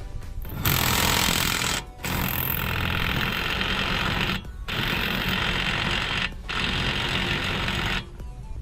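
Impact wrench hammering in four bursts with brief pauses between them, running down the 36 mm axle nut on a new CV axle.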